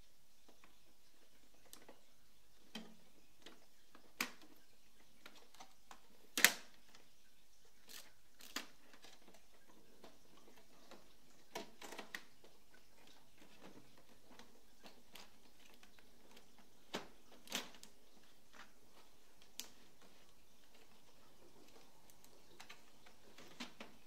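Scattered plastic clicks and knocks from the printer's front panel and paper tray being handled and opened, with one louder knock about six seconds in.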